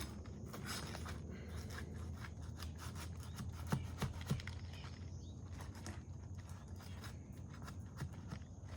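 Rubbing and scuffing with a few short sharp clicks about four seconds in, from handling asphalt roof shingles and their nails.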